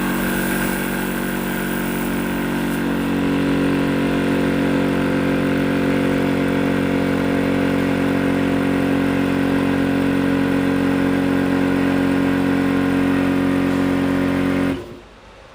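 Electric high-pressure PCP air compressor (300 bar / 4500 psi) switched on and running steadily with a dense mechanical hum, then cutting off suddenly near the end.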